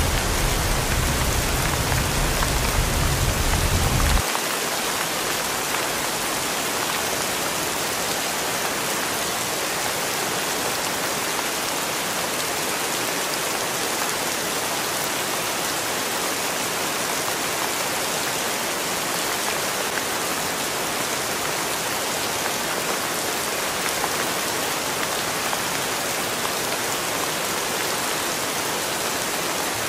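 Steady rain falling on wet pavement, an even hiss. For the first four seconds it is heard from inside a car driving on a wet highway, with a low road rumble under the rain, which then gives way suddenly to the rain alone.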